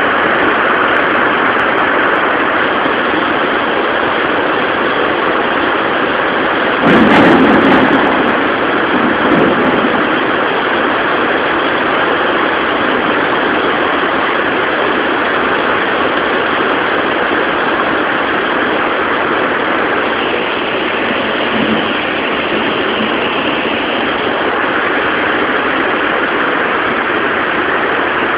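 Heavy rain pouring steadily, with a sudden thunderclap about seven seconds in that rumbles on for a second or two, and a smaller rumble just after.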